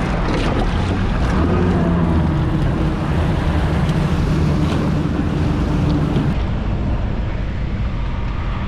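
Four Yamaha 300 V6 outboard engines running under throttle, their hum rising in pitch about a second and a half in, with wind rushing over the microphone. The engine sound drops away about six seconds in.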